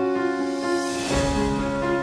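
Background music of sustained, steady chords, with a swelling whoosh that peaks about a second in and ends in a low hit.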